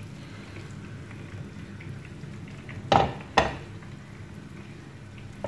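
Butter sizzling as it melts in a hot non-stick frying pan, a steady fine crackle. Two sharp knocks about three seconds in stand out above it.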